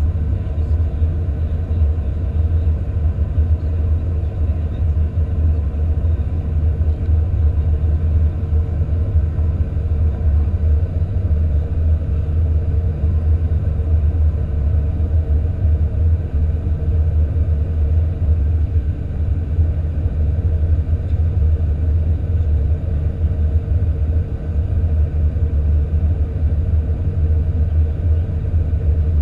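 Steady low rumble of an Airbus A310-300's cabin with its jet engines running in flight, heard from a window seat beside the engine during the approach. A faint steady hum sits above the rumble.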